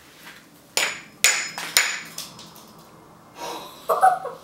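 A metal meat-tenderizer mallet striking a banana frozen rock-hard in dry ice on a cutting board: three sharp knocks about half a second apart, each with a brief metallic ring, then a fainter knock. A short vocal exclamation comes near the end.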